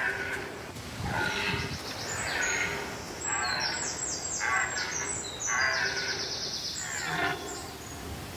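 Red deer stags roaring in the rut, one roar after another about a second apart.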